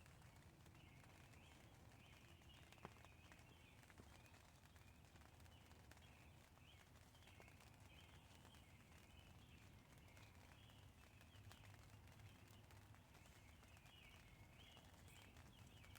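Near silence: faint light rain ticking now and then on a tent, under a faint ongoing chorus of high chirping calls.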